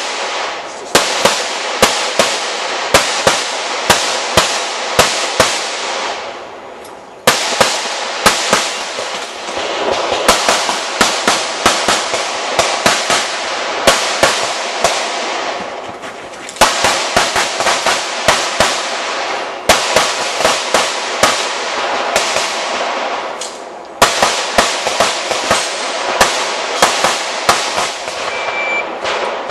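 Competition pistol fired in rapid strings of shots, about one loud shot every half second, with a steady hiss between shots. Brief pauses of about a second fall near 6, 16 and 24 seconds in, as the shooter moves between positions.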